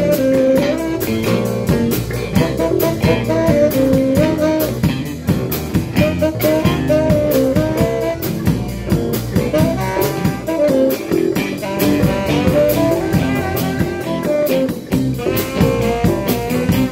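Live band playing an instrumental break: saxophone playing the lead line over electric guitar, bass guitar and a drum kit keeping a steady beat.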